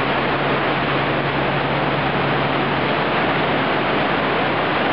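Surf washing in and breaking around the concrete pier pilings: a steady rush of seawater.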